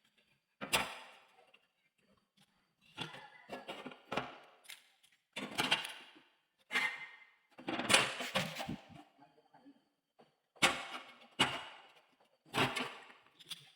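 A series of about nine sharp knocks on metal pipe as an elbow joint is worked by hand, unevenly spaced, each dying away over about half a second.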